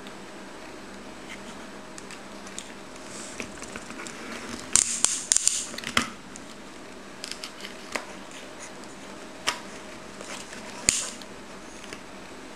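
Small plastic toy loader being handled: scattered clicks and short scratchy rustles, thickest about five to six seconds in, with a sharp click near eleven seconds.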